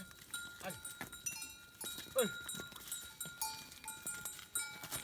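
Many small bells on a herd of goats and sheep jingling and ringing on and off as the animals move, with a few short calls that fall in pitch.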